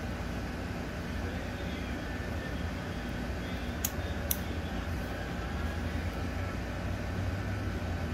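Two sharp clicks about half a second apart near the middle, plastic clips on the fuel-injector connectors snapping into place, over a steady low hum in the background.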